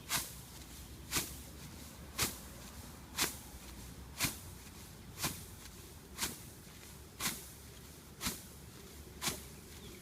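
Steps crunching through cereal rye straw, one short swishing crunch about every second in an even walking rhythm.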